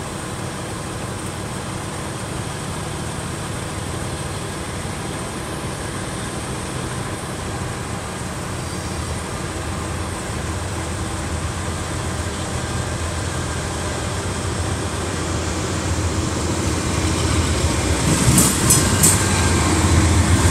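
Diesel locomotives of a BNSF intermodal freight train approaching, their engine rumble growing steadily louder as they near. There are sharp clacks near the end as the lead units come alongside.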